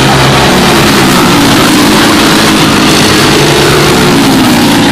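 Several racing karts' Briggs & Stratton Animal single-cylinder four-stroke engines buzzing past, loud, their pitch rising and falling as the karts go through the turn.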